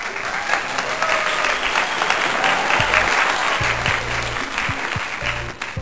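Applause, a dense crackle of many hands clapping, over background music with bass notes.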